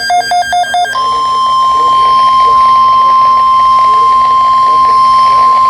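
NOAA Weather Radio SAME header data burst, a rapid warbling two-tone chirping that ends about a second in, followed by the steady 1050 Hz weather warning alarm tone, held without a break. Together they signal an incoming alert message.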